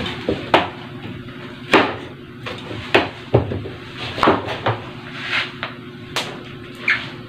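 Kitchen knife chopping through banana heart onto a wooden cutting board: sharp knocks at uneven intervals, about one a second.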